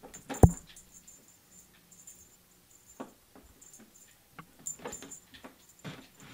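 Cat playing with a feather wand toy on a tabletop: a loud thump about half a second in, then scattered light taps and rustles as it paws and scrabbles.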